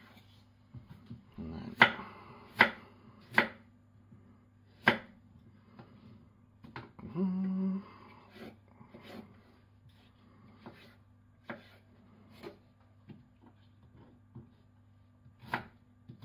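A kitchen knife cutting through peeled raw potatoes into chips on a wooden chopping board: sharp knocks as the blade hits the board, several in quick succession at first, then sparser. About halfway through, a short low hum sounds briefly.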